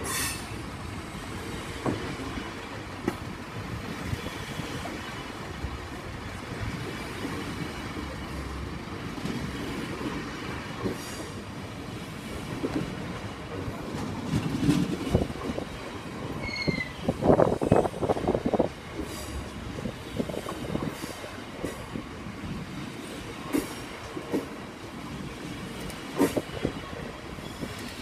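Freight train's loaded hopper wagons rolling past at low speed, wheels clattering over the rail joints. There is a brief wheel squeal and then a run of loud knocks about two-thirds of the way through.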